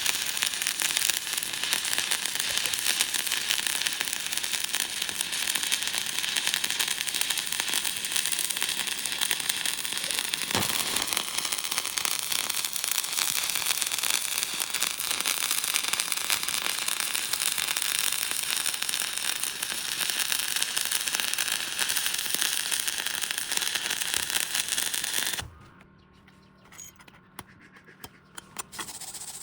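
Electric arc welding: the arc crackles and sputters steadily, then is broken about four seconds before the end, leaving a few faint clicks.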